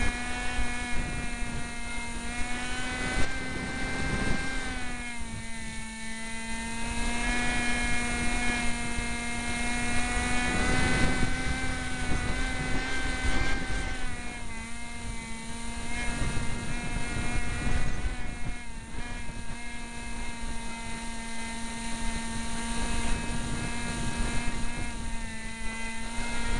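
Onboard whine of the Cox SkyCruiser's small motor and propeller running near full power, a steady hum whose pitch sags and recovers slightly several times. Wind rumbles across the microphone.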